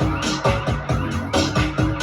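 Digital ragga dub track programmed on a Maschine MK2 groovebox: short low drum and bass hits that drop in pitch, about four a second, over a steady electronic beat with a held synth note coming in about halfway through.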